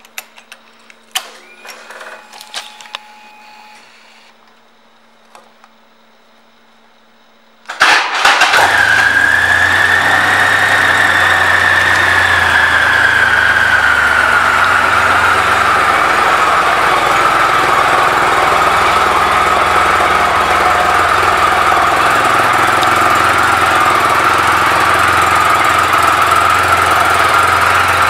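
A few clicks at the controls, then, about eight seconds in, the 2007 Triumph Rocket III Classic's 2.3-litre inline-three engine, fitted with aftermarket pipes, starts suddenly and runs at a loud steady idle. Its pitch falls slowly over the next ten seconds or so as the idle settles.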